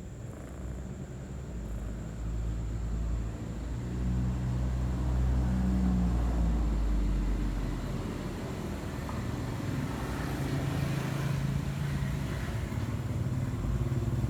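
Road vehicles passing close by: a low engine hum swells about four seconds in, eases off a few seconds later, then builds again toward the end.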